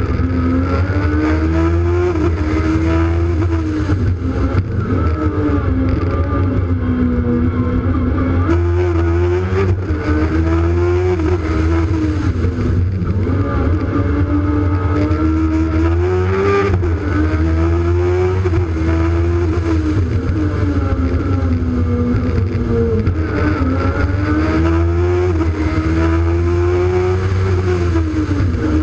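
Peugeot 106's 1000cc Honda engine heard onboard, revving up hard and dropping back again and again as the car accelerates and lifts between tight turns, over a steady low drone.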